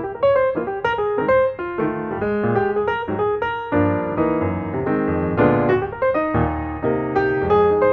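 Piano music playing a quick, light run of notes, with fuller chords from about halfway through.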